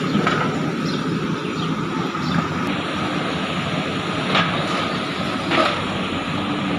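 JCB 3DX backhoe loader's diesel engine running steadily, with two short sharp sounds a little over four and five and a half seconds in.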